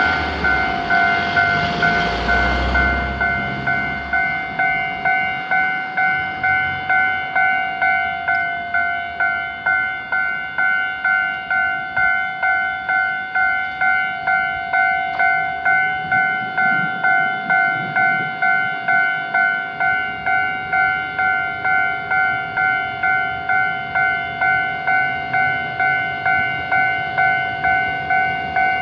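Japanese railway level crossing's electronic warning bell ringing 'kan-kan' steadily, just under two strokes a second. In the first few seconds the noise of a passing train dies away under it.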